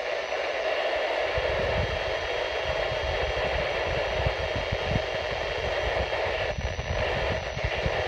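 Steady static hiss from a Midland weather alert radio's speaker: the NOAA Weather Radio broadcast has dropped out mid-sentence, a sign of lost or weak reception. An irregular low rumble runs underneath.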